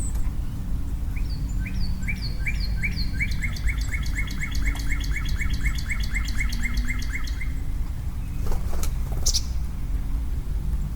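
A bird calling a long series of short, evenly repeated notes for about six seconds, the notes coming a little faster as it goes on. A couple of sharp clicks and a brief high chirp follow near the end, over a steady low background rumble.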